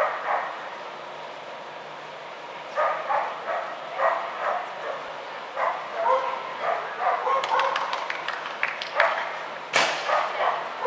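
Dog barking repeatedly as it runs an agility course, starting about three seconds in, with a sharp bang near the end.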